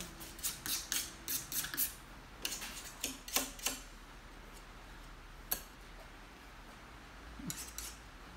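Quick scratchy strokes and taps of a painting tool working paint on the palette and canvas: a dense run in the first four seconds, a single stroke about five and a half seconds in, and a short cluster near the end.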